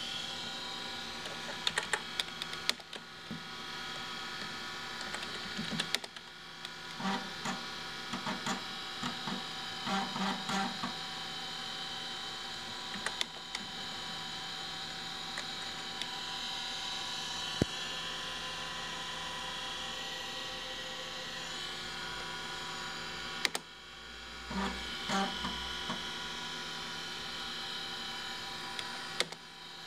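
Vintage 386 PC running, with the steady hum of its fans and the spinning Kalok KL-320 MFM hard drive, broken by several short bursts of clicking and buzzing.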